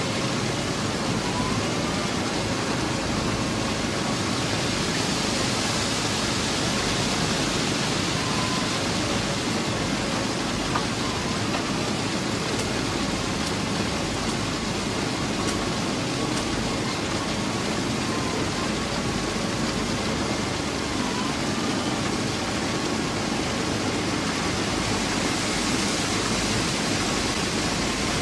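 Plasser & Theurer PM 1000 URM track rehabilitation machine running: a steady, even hiss of sand and gravel pouring from its conveyors over the drone of its machinery, with a faint wavering high tone.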